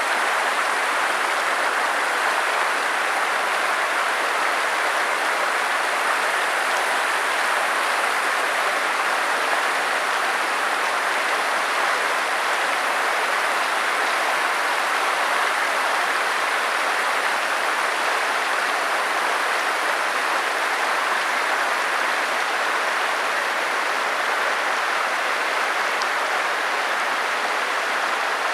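Stream water rushing steadily over rocks, a constant even hiss.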